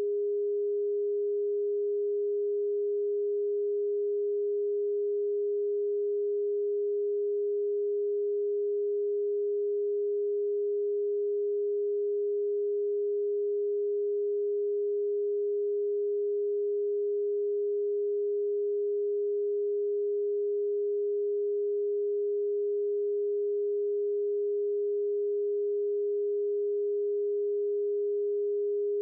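A pure sine tone played as a Rife frequency, one steady pitch held unchanged throughout with no other sound.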